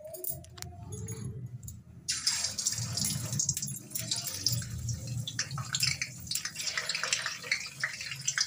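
Soya chaap sticks going into hot oil in an iron kadhai and frying. A sizzle full of crackles starts suddenly about two seconds in and then carries on steadily.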